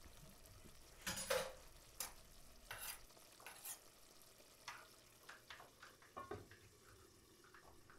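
Faint kitchen sounds: a utensil stirring and scraping in a pan, with a string of short scrapes, the loudest a little over a second in.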